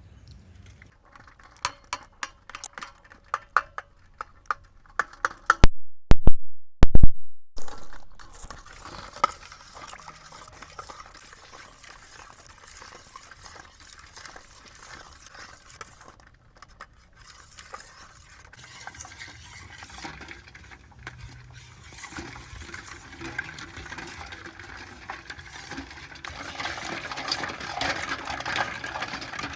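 Utensils clicking against a bowl, then stirring and mixing. A few very loud knocks come about six seconds in, and the scraping and stirring grow louder near the end.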